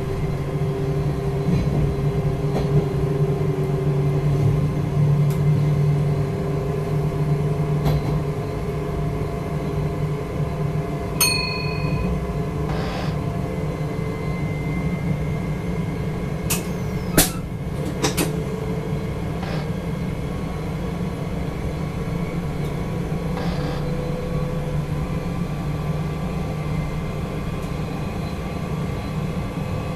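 Electric NS train heard from inside the driver's cab while it runs along the line: a steady rumble with a held motor hum. A short beep about eleven seconds in, and two sharp clicks a second apart around seventeen seconds in.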